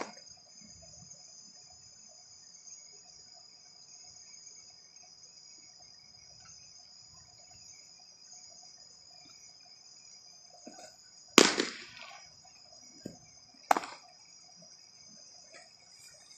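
Pitched baseball popping into a catcher's leather mitt: a sharp crack right at the start, a louder one about eleven seconds in and a smaller one about two seconds after that. Behind it, a steady high chorus of crickets.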